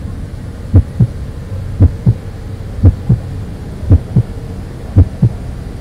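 Heartbeat sound effect: a steady lub-dub double thump about once a second, six times, over a low steady hum.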